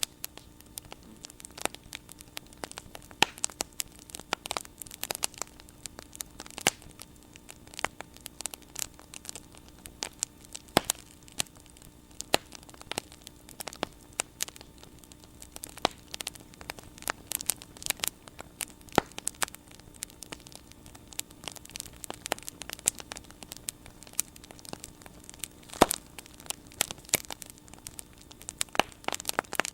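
Wood bonfire crackling, with sharp irregular pops and snaps over a low hiss and a faint steady hum underneath.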